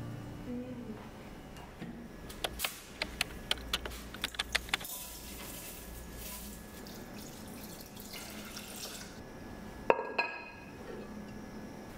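Kitchen sink work: a quick run of light clicks and knocks, then water running from the tap for a few seconds, then a single sharp knock near the end.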